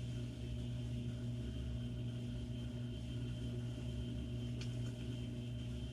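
Steady low background hum of the room, with a single faint click about four and a half seconds in.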